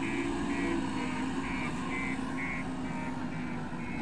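JCB backhoe loader's diesel engine running steadily, with its reversing alarm beeping about twice a second.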